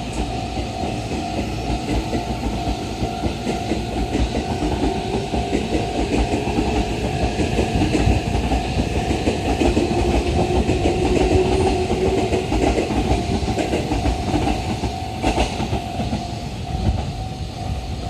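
JR East E657 series electric train pulling out and gathering speed, its wheels clattering over the rail joints. It grows louder towards the middle and eases off near the end, with a motor whine rising in pitch about two-thirds of the way through. Cicadas drone steadily behind it.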